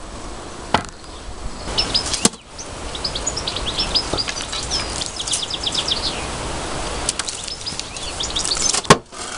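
Spade scooping compost from a wheelbarrow and tipping it into a wooden planting box, with a few sharp knocks of the spade. A small bird sings a run of quick, high chirps through the middle.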